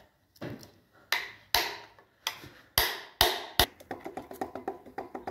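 About seven sharp metal taps on a screwdriver wedged behind the water pump of a Gardner 6LXB diesel engine block, driving the seized pump off its mounting. Near the end they give way to a quick light rattling as the loosened pump is worked free.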